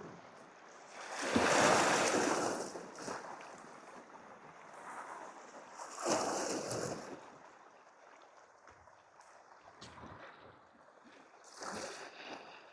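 Sea waves washing against shore rocks, in three surges about five seconds apart, the first the loudest.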